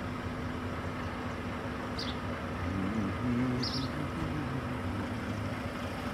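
Stopped traffic of semi trucks and cars idling: a steady low diesel engine hum, its pitch shifting slightly about halfway through. A short high chirp sounds about every two seconds.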